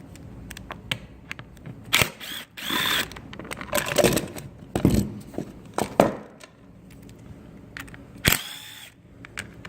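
Clicks, knocks and rattles of plastic covers and parts being handled while the air filter of a Stihl TS800 cut-off saw is taken off. A cordless drill-driver gives a short whir about eight seconds in.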